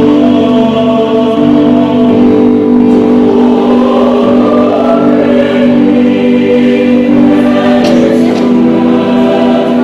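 Choir singing a hymn in long held chords, moving to a new chord about two seconds in and again near eight seconds.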